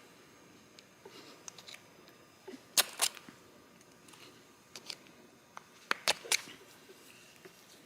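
Sharp clicks and snaps, as of small hard parts being handled: two close together about three seconds in and three more around six seconds, with lighter ticks between, against a quiet room.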